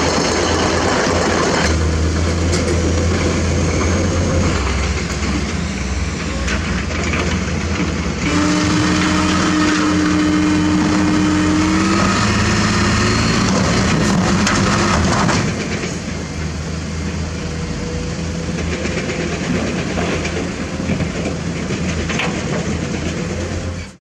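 Hino 500 dump truck's diesel engine running. About eight seconds in it picks up to a louder, steady note with a whine while the hydraulic hoist raises the dump body to tip the load, then settles back about fifteen seconds in.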